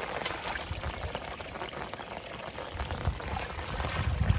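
Water pouring and rushing steadily, like rain runoff flowing into flooded fields, with low thumps on the microphone about three and four seconds in.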